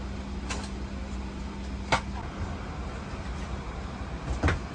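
Boeing 757 cabin at the gate during boarding: a steady low hum of the cabin air, with a few short sharp knocks, the loudest about two seconds in and near the end.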